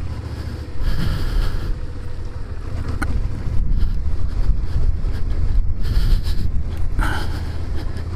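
Wind rushing over a helmet-mounted microphone on a moving Suzuki SFV650 Gladius in the rain, with the bike's 645 cc V-twin engine running underneath as a steady low rumble and tyres on a wet road. The hiss swells about a second in and again near the end.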